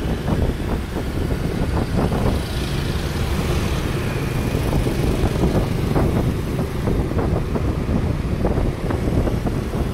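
Scooters and motorbikes riding past in a slow-moving crowd, engines running, with wind rumbling on the microphone of a moving rider.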